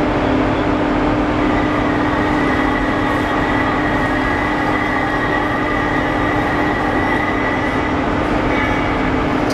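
Overhead crane's drive running steadily, a constant hum with a thin high whine that comes in after about a second and a half and fades out near the end.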